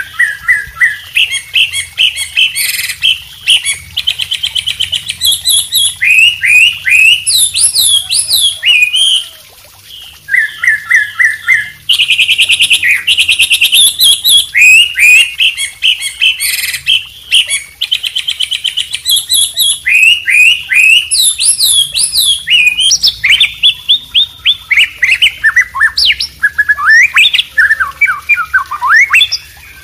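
Bird-song recording mixing a white-rumped shama (murai batu), a wambi and a trucuk (yellow-vented bulbul) singing in rapid, overlapping runs of whistles, trills and chirps, with a brief lull about nine seconds in.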